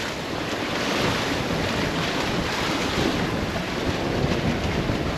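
Steady rush of wind buffeting the microphone and waves washing past a sailboat's hull while under sail.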